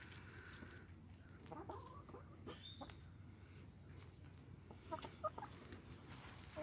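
Hens clucking faintly: a few short calls about a second and a half in, then a quick cluster of clucks about five seconds in.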